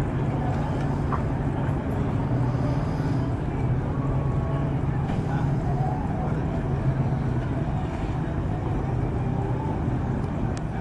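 A car engine running steadily at low revs, its pitch holding even, with people's voices faint in the background.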